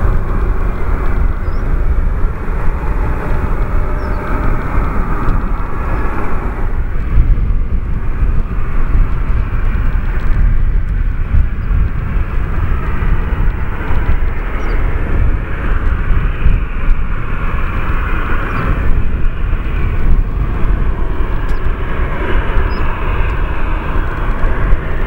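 Jet engines of a Boeing 737-800 airliner running with a steady rushing roar as the plane moves along the runway, under a heavy low rumble.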